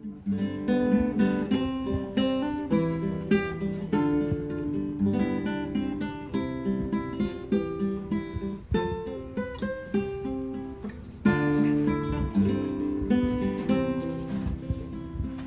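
Solo acoustic guitar playing an instrumental passage of picked notes and chords, without singing; it gets louder about eleven seconds in.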